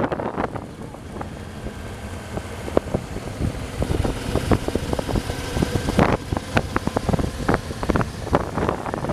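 Honda Transalp V-twin motorcycle riding along a road, its engine running under wind buffeting the microphone, with many short thumps and gusts.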